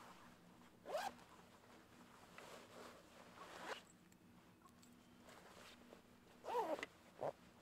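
Zipper on a jacket being pulled in four short rasping strokes, the longest and loudest about two thirds of the way in.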